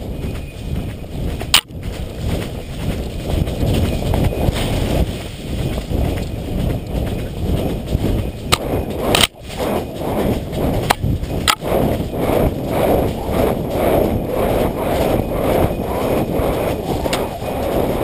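A horse's hooves beating on a leaf-covered dirt trail at a fast gait, over a steady rumble of movement, with a few sharp knocks. The regular beat of the hooves grows clearer in the second half.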